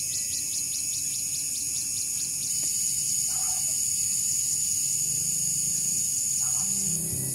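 Insects chirring in a high, steady drone, with a fast pulsing trill of about eight beats a second for the first couple of seconds. Acoustic guitar music comes in near the end.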